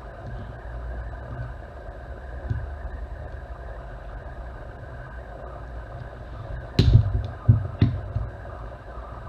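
Steady low background hum, with three sharp knocks about seven seconds in as the metal parts of a Webley Senior air pistol are handled on a rubber bench mat.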